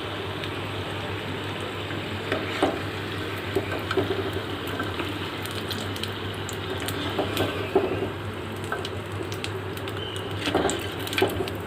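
Vegetable spring rolls deep-frying in hot oil, a steady sizzle, with a few short clinks of a utensil against the pan as the rolls are lifted out.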